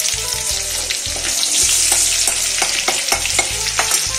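Chopped garlic and green chillies sizzling in hot oil in a steel wok, a steady hiss with many small crackles and pops.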